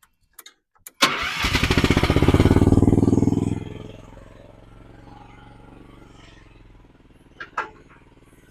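A Chinese mini excavator's engine is cranked and starts about a second in. It runs loud and fast for a couple of seconds, then settles to a steady, much quieter idle. A couple of sharp clicks come near the end.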